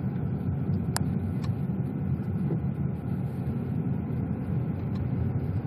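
Steady low rumble of a car's engine and tyres heard from inside the cabin while driving. A single sharp click about a second in.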